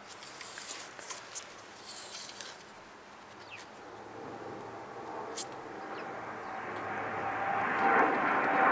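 Engine oil dipstick handled in its tube on a Mercedes M112 V6, giving light scrapes and clicks. A distant engine noise grows steadily louder over the second half and becomes the loudest sound near the end.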